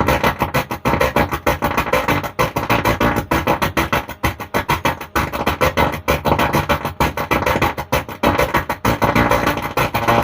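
Recorded music played loud through a Stranger PBT 800 mono amplifier into a speaker box, broken up by frequent short dropouts. It carries the fault noise that the technician traces to the amplifier's faulty driver board.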